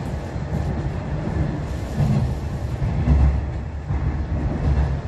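Hanshin 8000-series electric train running at speed through an underground station and into a tunnel, heard from inside the front car: a continuous low rumble of wheels on rail and running gear, a little louder about three seconds in.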